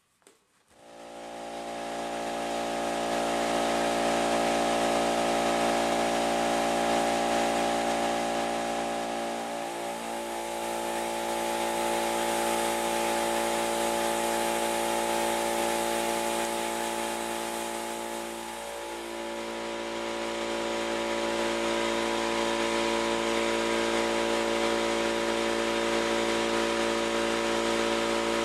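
Air compressor motor running steadily, with an even hiss of air over its hum. It starts about a second in, and its pitch sags briefly twice, once around ten seconds in and again near twenty.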